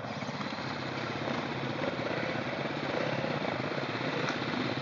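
Dirt bike engines running steadily as the bikes ride along a rocky trail, with a fast, even engine pulse.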